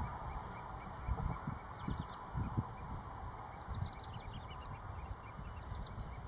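Wood sandpipers calling: three short runs of quick, high, slightly falling notes, with low rumble and a few dull thuds underneath.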